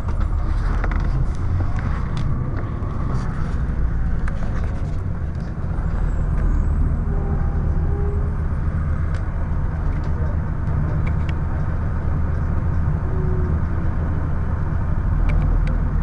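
Inside a 2002 Blue Bird CS transit bus under way: its Cummins ISC diesel engine runs with a steady low rumble, along with light rattles and clicks from the bus body.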